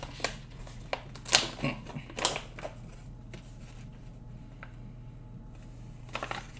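Jerky pouch crinkling and crackling as it is opened and handled: a cluster of sharp crackles in the first couple of seconds, then a brief rustle near the end.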